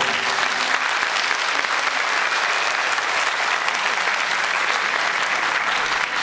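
Concert audience applauding steadily in a large hall right after a choir song ends.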